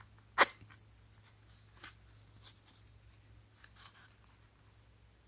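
A leather high-heeled shoe being handled. One sharp click comes about half a second in, then faint scattered ticks and rustles as the zipper at the back of the shoe and its metal pull tab are worked, over a low steady hum.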